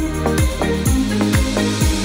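Background electronic music with a steady beat, a kick drum about twice a second under held synth notes.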